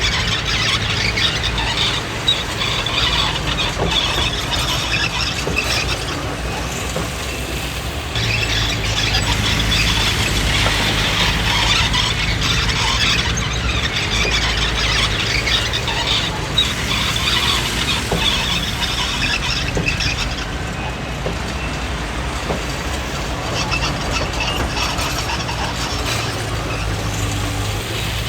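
Komatsu D20P crawler bulldozer working. Its diesel engine runs with a steady low drone, under a loud high squeal and clatter from its steel tracks.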